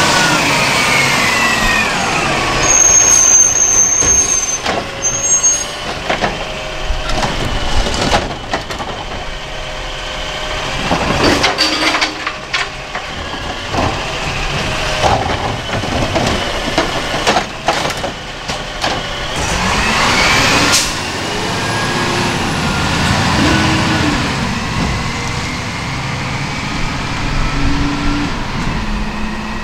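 Peterbilt 320 garbage truck with a DaDee Scorpion automated side-loader arm working a cart. The engine rises and falls in pitch as it drives the hydraulics, with short air-brake hisses in the first few seconds and a run of sharp knocks and bangs in the middle as the cart is gripped, lifted, shaken into the hopper and set back down. About twenty seconds in the engine revs up and the truck pulls away, its sound fading near the end.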